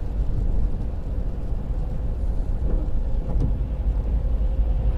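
Steady low rumble inside a moving car on a wet road: tyre and road noise mixed with the engine while driving.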